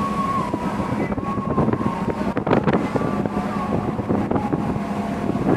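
Wind buffeting the microphone over the rush of churning seawater along a cargo ship's hull. Under it runs a steady low engine hum, with a faint wavering whistle above.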